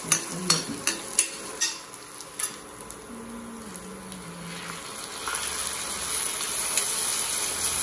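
Steel ladle stirring and scraping onions frying in a metal kadhai, with sharp clicks of the ladle against the pan in the first couple of seconds. Once chopped tomatoes are in, the sizzle grows louder and steadier for the second half.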